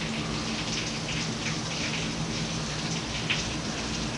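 Heavy rain pouring down: a steady hiss of rainfall with scattered individual drop ticks, over a faint steady low hum.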